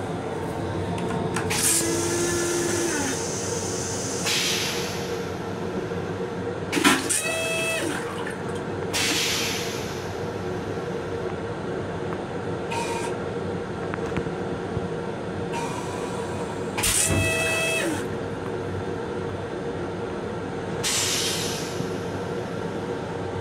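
Steady hum of a Metro-North M7 electric railcar, heard from inside its restroom. It is broken by several short hisses and three brief squealing tones, one about two seconds in and two more around seven and seventeen seconds in.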